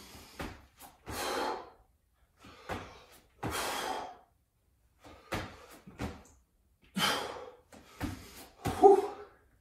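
A man breathing hard and fast from exertion, with heavy breaths in and out, and a short voiced grunt near the end. A few dull thumps come as his feet land on a wooden floor during squat thrusts.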